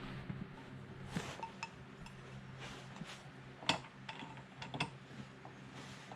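Small metal hardware being handled and fitted together: scattered light clinks and taps of metal on metal, the sharpest a little past halfway, over a faint steady hum.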